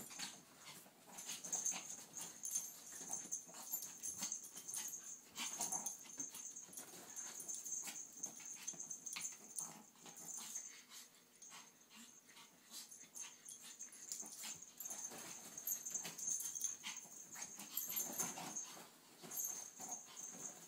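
Maltese and Sheltie puppies play-fighting, making short, irregular dog noises throughout.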